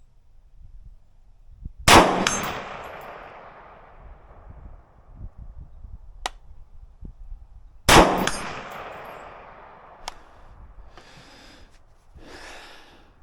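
Two gunshots about six seconds apart, each loud and sharp with a long echoing tail, and a couple of faint sharp metallic ticks in between. Two short hissing noises follow near the end.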